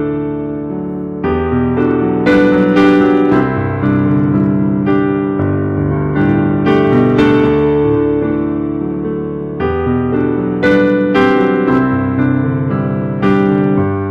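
Piano playing a slow passage of chords and melody, with notes struck roughly once a second and left to ring.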